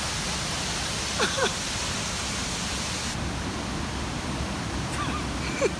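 Waterfall rushing steadily into a rock pool, with two short human exclamations, about a second in and near the end.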